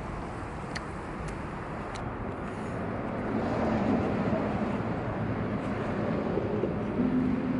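Traffic noise with a car engine running close by, swelling about three seconds in into a steady low hum. A few faint light clicks come in the first two seconds.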